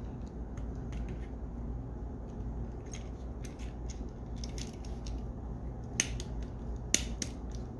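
Light clicks and taps of a small QD sling-mount part being handled and fitted by hand, with two sharp clicks about a second apart near the end.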